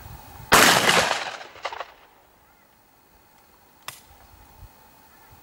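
A single shot from a Miroku MK70 Sporter 12-gauge over-and-under shotgun firing 00-SG buckshot, loud and sudden, ringing out for over a second. A short sharp click follows about three seconds later.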